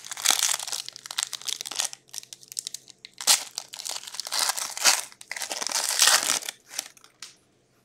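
Foil wrapper of a hockey card pack being torn open and crinkled by hand, in several crackling bursts that stop about seven seconds in.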